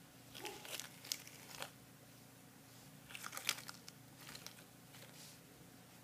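White paper tissue being crumpled in the hands: two spells of crackly crinkling, the first about half a second in and the second about three seconds in.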